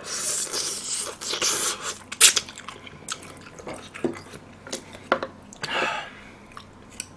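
Close-up eating sounds: a man chewing and sucking tender pork spine meat off the bone, with several breathy hissing sucks and a few sharp wet clicks.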